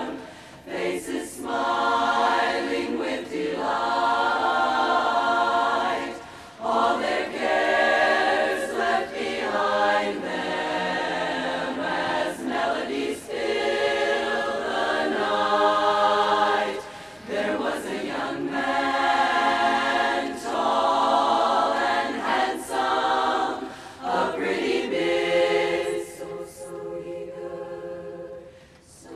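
Women's barbershop chorus singing a cappella in close four-part harmony, phrase after phrase with short breaks between, turning softer near the end.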